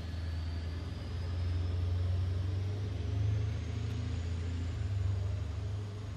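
Low, uneven rumble of a jet airliner passing high overhead, with a faint high whine that rises slowly in pitch.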